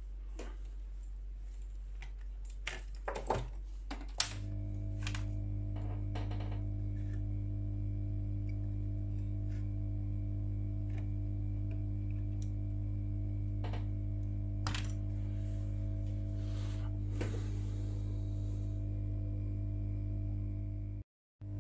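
Light clicks and taps as a laptop motherboard and its RAM module are handled on a workbench, a cluster of them a few seconds in and a few more scattered later. Underneath is a steady low hum that shifts and grows louder about four seconds in.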